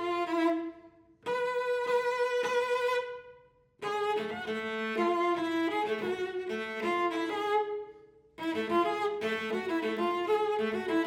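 Solo cello playing slow phrases, often two notes at once, each phrase dying away into a brief pause before the next. A single sustained note with vibrato is held early on.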